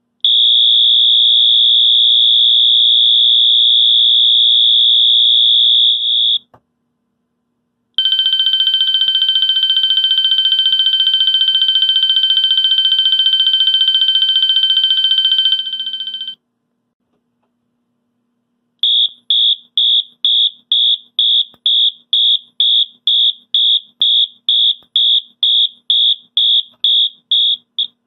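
Wheelock MT-24-LSM electronic fire alarm horn sounding several of its eight selectable tones. First a steady high horn tone for about six seconds, then after a short gap a harsher, buzzier steady tone for about eight seconds, then after another gap a fast series of short beeps, about two and a half a second.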